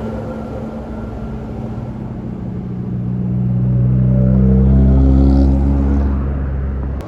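Bus passing close by, its engine growing louder to a peak about five seconds in, its pitch falling as it goes past, then easing away.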